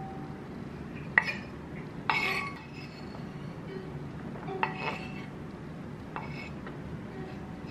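A kitchen knife scraping chopped vegetables off a bamboo cutting board into a silicone food container, with a handful of sharp, briefly ringing clinks as the blade knocks against the board and container.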